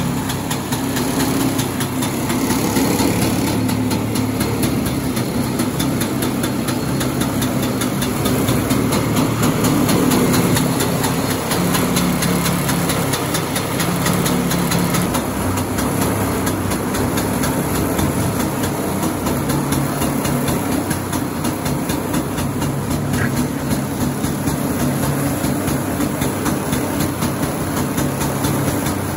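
Vintage snowmobile's two-stroke engine running at a steady idle on its first start of the year.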